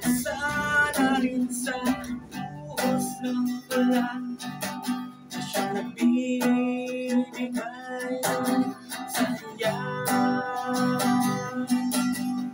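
An acoustic guitar being played as song accompaniment, its notes ringing in a steady run of chords, with a man singing over it at times.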